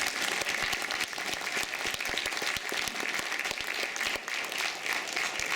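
Audience applauding, a dense steady clapping that greets the performers.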